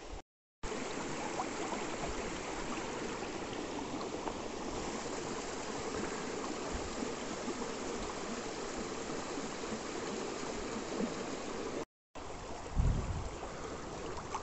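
Small mountain stream running over stones: a steady rushing of water. It cuts out for a moment twice, and a short low rumble comes near the end.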